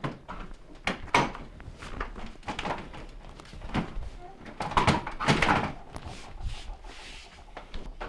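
Maytag bottom-mount freezer drawer's door front being lifted up and off the grooves of its metal slide tracks: a series of clunks, knocks and scraping rattles, busiest around five seconds in.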